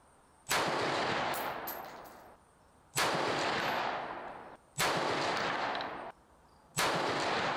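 A Sterling Arms R18 MK2 semi-automatic rifle in .223 Wylde fires four single shots about two seconds apart. Each shot is followed by a long echo that dies away.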